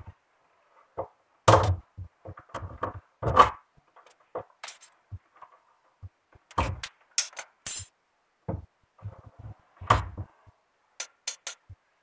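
Irregular knocks, taps and clicks of a hand tool and fingers working on the underside of a top-loading washing machine, the loudest knocks about one and a half and three and a half seconds in.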